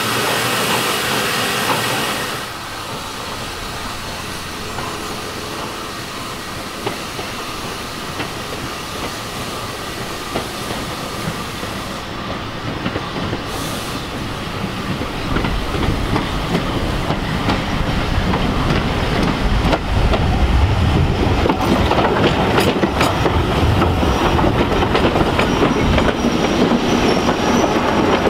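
British Rail Class 205 'Thumper' diesel-electric multiple unit running in, its English Electric four-cylinder diesel engine growing louder as it draws near, with wheels clicking over rail joints and squealing. A steady hiss fills the first two seconds.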